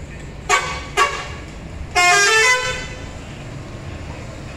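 Horn of a Mercedes-Benz OH 1626 coach, blown by the driver: two short blasts about half a second apart, then a louder blast lasting under a second whose pitch shifts. The bus engine runs low underneath.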